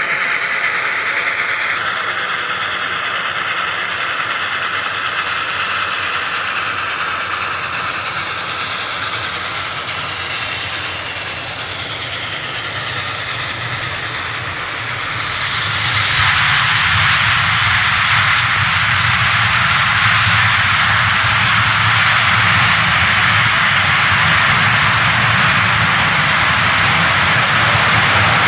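Reading & Northern steam locomotive 425 and the diesel unit behind it running through a rail tunnel: a continuous noise of locomotive exhaust and wheels on rail that steps up sharply in loudness about sixteen seconds in.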